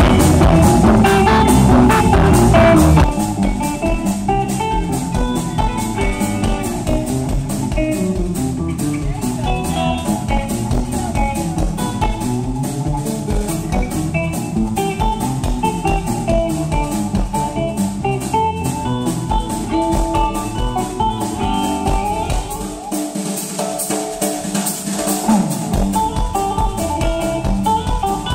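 Live band instrumental: a Telecaster-style electric guitar plays a fast run of picked notes over drums. The full band is loudest for the first three seconds or so, then drops back. The low end cuts out for a couple of seconds near the end.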